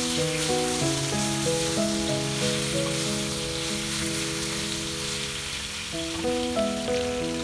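Pieces of boiled, mashed elephant apple sizzling in hot mustard oil in a wok-style pan, stirred with a wooden spatula. Instrumental background music with held notes plays over the frying.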